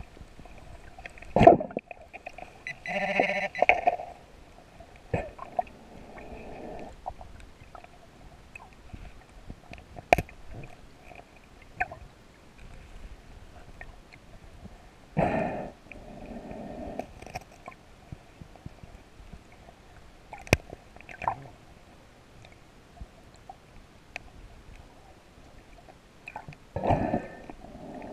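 Underwater sound of a scuba diver's breathing through the regulator: a gurgling burst of exhaled bubbles about every twelve seconds, with scattered small clicks and knocks in between.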